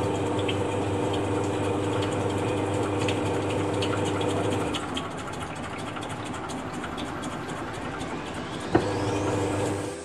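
Samsung top-loading washing machine's motor humming while the drum turns slowly under a heavy load, with fast rattling ticks. This is the slow spin the owner traced to a slack motor-to-gearbox V-belt. The hum drops out a little before halfway and comes back with a sharp click near the end, while a rising whistle builds at the very end.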